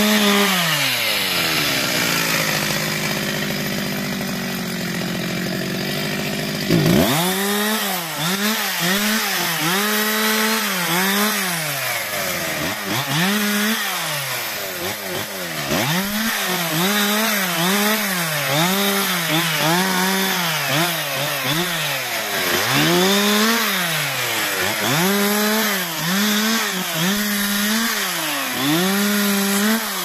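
Stihl MS 361 two-stroke chainsaw cutting through pine logs and branches. It starts with one long cut, the engine pitch sagging under load. About a quarter of the way in it changes abruptly to short bursts of full throttle dropping back toward idle, every second or two, as branches are cut off.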